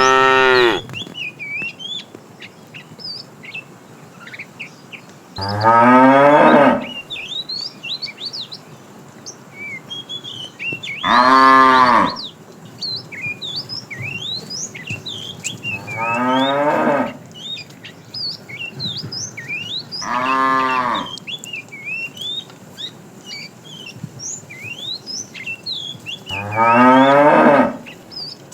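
Cows mooing: five loud, drawn-out moos about a second each, coming roughly every five seconds. Birds chirp in the gaps between the calls.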